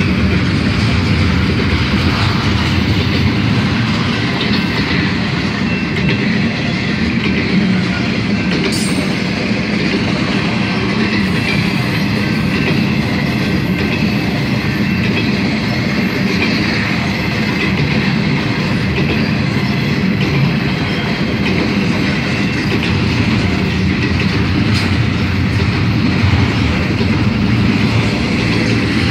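Piggyback freight train's cars rolling past on a curve: a steady, loud rumble of steel wheels on rail with clickety-clack over the joints.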